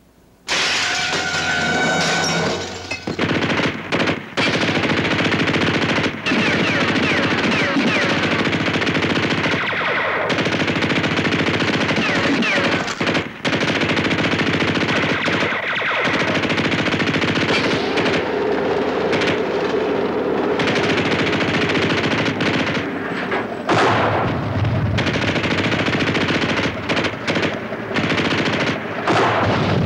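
Sustained machine-gun and rifle fire in a war-drama battle soundtrack, breaking out suddenly about half a second in and going on without a let-up. Heavy booms from a tank's main gun or shell bursts come twice near the end.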